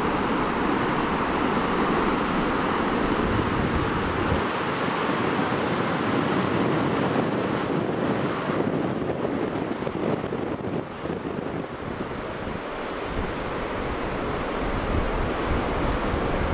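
Ocean surf washing and breaking over rocks below a cliff, a steady hiss that softens about halfway through. Wind buffets the microphone with a low rumble, strongest in the first few seconds and again near the end.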